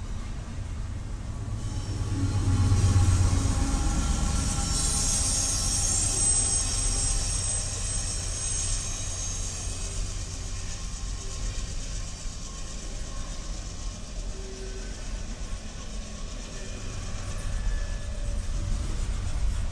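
Double-stack intermodal freight train rolling past: a steady rumble of wheels on rail with some clickety-clack. A deeper rumble swells about two to four seconds in as the mid-train diesel distributed-power locomotive goes by, and a high wheel squeal rings from about five to nine seconds.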